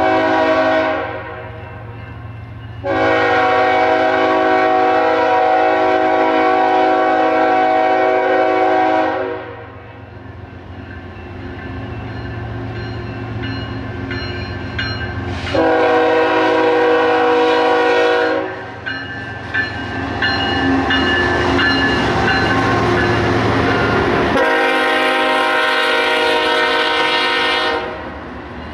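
Diesel locomotive air horn sounding a chord of several notes in four blasts: a brief one at the start, one long blast of about six seconds, then two of about three seconds. Between them a train passes with a low rumble and rail clatter.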